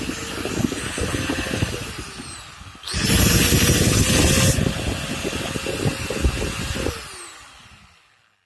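Electric angle grinder running with a steady whine, winding down, then switched on again about three seconds in, loudest for a second and a half. It is switched off near the end and its whine falls away as the disc spins down.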